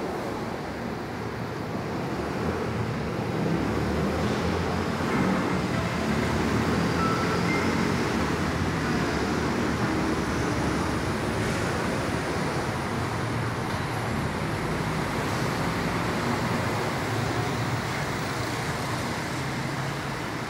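São Paulo Metro Line 1-Blue train running away along the track, a steady rumble blended with city road traffic noise, swelling a few seconds in and then holding.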